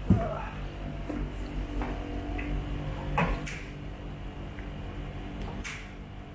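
A sharp thump, then scattered clicks and knocks of metal parts being handled as a caster wheel is set against the end of a TV cart's steel base leg for fitting.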